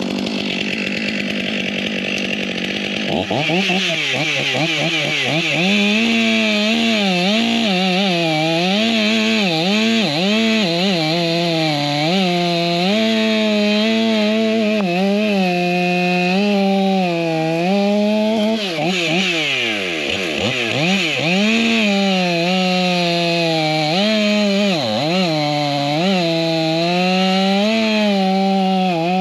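Stihl MS 500i fuel-injected two-stroke chainsaw running at high revs, cutting a hardwood log, its engine pitch rising and falling as the chain loads and frees in the cut. Twice in the later part the revs drop sharply and pick back up.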